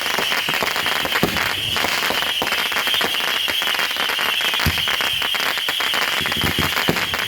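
Fireworks going off in a dense, unbroken crackle, many small reports a second, with a couple of deeper booms through it.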